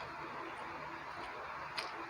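Close-miked eating sounds: a person chewing a mouthful of rice and chicken curry, with one short sharp wet mouth click near the end.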